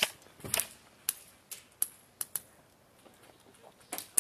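Airsoft guns firing single shots: about nine sharp cracks at irregular intervals, with a quiet gap in the second half before two more near the end.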